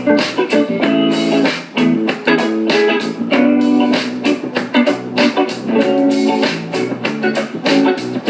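Music: an instrumental stretch of a song with guitar and a steady beat.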